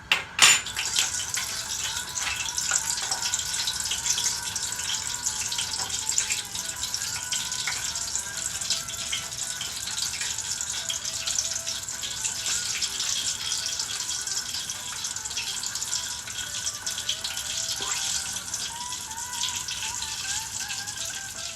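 Hot cooking oil sizzling and crackling steadily as breaded chicken bites fry, after a sharp knock about half a second in.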